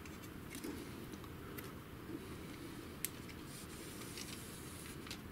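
Faint handling noises of printer parts: plastic rubbing and a few small sharp clicks as an inkjet print carriage is fitted onto its steel rail.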